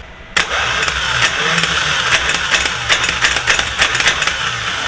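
Electric starter motor off a boat engine, bench-tested with its solenoid jumped straight to the battery: it starts abruptly about a third of a second in and spins freely with no load, a steady loud whir with hissing and crackling. It is being run to see whether the solenoid, which had locked on, sticks again.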